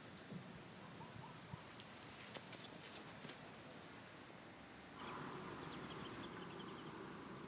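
Faint outdoor ambience with a few short, high bird chirps and some light ticks. About five seconds in, a steady low hum sets in and holds.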